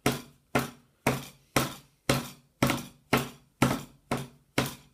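A cup of freshly mixed casting plaster tapped down on the work surface about ten times, in an even rhythm of about two knocks a second. The tapping forces the air bubbles in the mix up to the top before it is poured.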